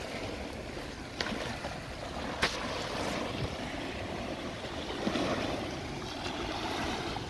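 Sea waves washing and splashing against the rocks of a breakwater, with wind buffeting the microphone. Two short, sharp clicks come through, about one second and two and a half seconds in.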